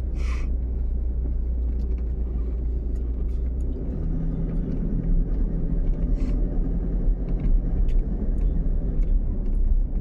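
Car cabin noise while driving slowly: a steady deep engine and road rumble, with a low hum coming in about four seconds in and a few faint ticks scattered through.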